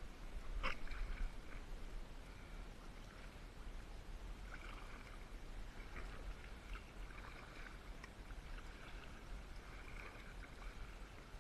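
Kayak paddle dipping and splashing in shallow water, with water dripping and trickling off the blade, and a sharp knock about a second in.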